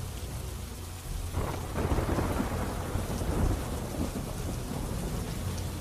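Heavy monsoon rain falling, with a low rumble that swells about a second and a half in.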